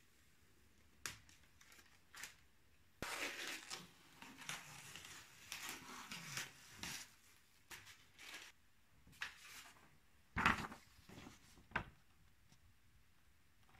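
Protective paper and tape being peeled off a cylinder head and crumpled: a few seconds of rustling and crinkling, with a couple of sharp knocks near the end.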